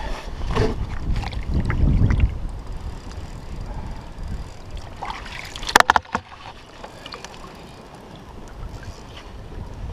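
Wind buffeting the microphone for about the first two seconds, then small knocks and handling sounds on a kayak, with a sharp cluster of clacks about six seconds in.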